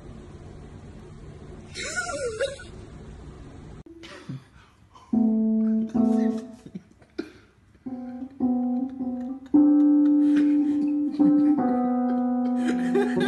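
Synthesizer keyboard sounding held notes as a cat steps on its keys. The sustained tones start and stop at uneven intervals from about five seconds in, with several notes overlapping toward the end.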